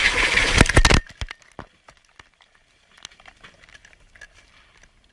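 Loud crashing and crackling noise from a crash filmed on a tumbling camera. It cuts off suddenly about a second in, leaving faint scattered crackles and rustling.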